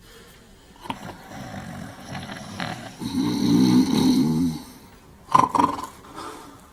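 Two men snoring, with one long, loud snore from about three to four and a half seconds in, then a couple of short, sharp ones.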